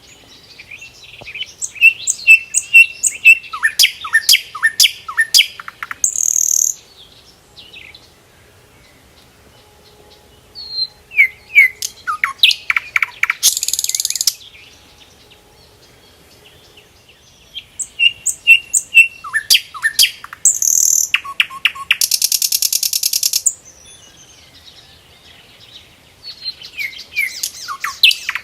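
A small songbird singing close by, in four similar bouts of a few seconds each with short pauses between. Each bout mixes quick chirps and falling whistled notes with a fast, buzzy trill near its end.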